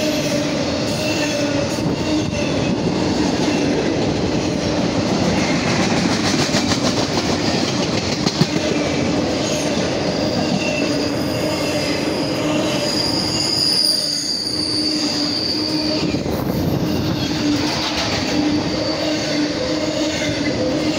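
Empty intermodal well cars of a freight train rolling past, steel wheels rumbling and clacking over the rail joints. High wheel squeals rise about ten seconds in and die away a few seconds later.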